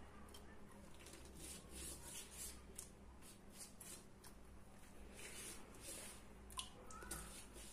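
Silicone pastry brush stroking an oil-and-water mix onto a thin sheet of yufka dough: a faint run of soft, irregular rubbing strokes, over a low steady hum.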